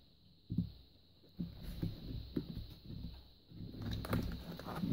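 A flat cardboard mailer box handled and opened by hand: a dull knock about half a second in, then irregular light knocks and cardboard scraping that grow busier near the end.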